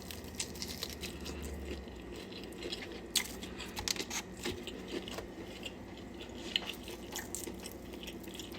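A person chewing and biting into chicken wings close to the microphone, with irregular wet mouth clicks and light crunches.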